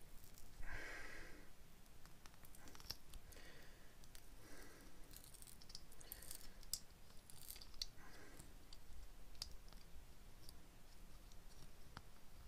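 Faint, irregular clicks and scratches of a pink mould being picked and peeled off a cast resin dome by hand.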